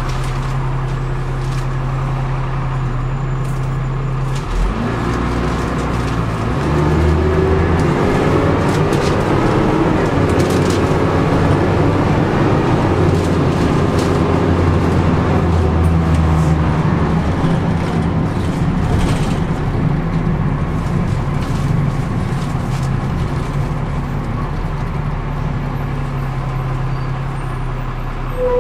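Dennis Dart SLF single-deck bus heard from inside the saloon: the diesel engine runs steadily at low revs, then about four and a half seconds in it picks up, its whine rising as the bus gathers speed, and it runs on steadily and eases off near the end.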